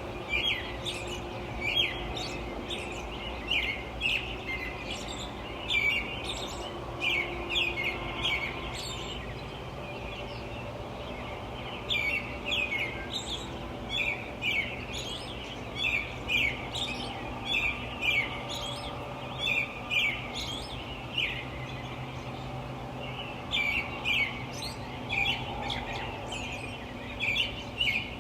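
Small birds chirping in quick, repeated short calls over a steady low hum of distant light traffic, with a couple of brief lulls in the chirping.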